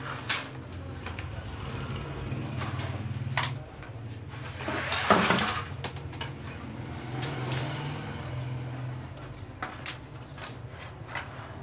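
Metal tools and small machine parts clicking and clinking against a buttonholing machine as its screws are undone and parts taken off, with a louder stretch of rattling about five seconds in. A low steady hum runs underneath.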